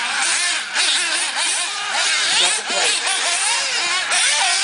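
Several 1/8-scale nitro RC buggies racing, their small engines buzzing at high pitch in overlapping revs that rise and fall as they accelerate and brake around the track.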